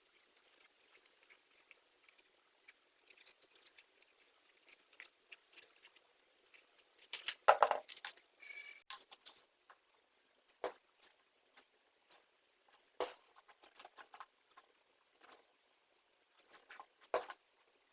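Scattered small clicks and taps of workshop handling, with a louder clatter a little before halfway and a few single knocks after it. A faint steady high whine runs underneath.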